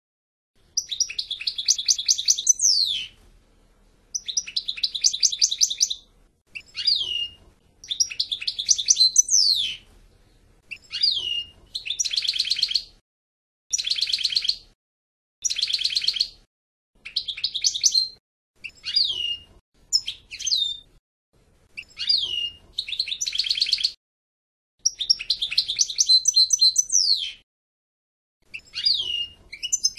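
European goldfinch singing: a string of rapid, high twittering and trilling phrases, each one to three seconds long with short pauses between, several ending in a quick falling note.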